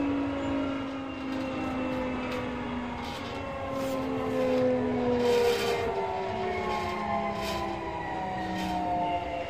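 Sotetsu 8000-series electric train heard on board, its VVVF inverter and traction motors whining in several tones that fall steadily in pitch as the train slows. Underneath is a low running rumble, with a few brief knocks from the wheels.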